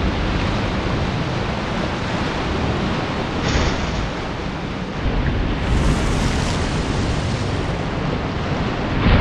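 Rough surf in a tidal pass: a steady rush of breaking waves and churning water, with a brighter splash about three and a half seconds in and another surge near the end.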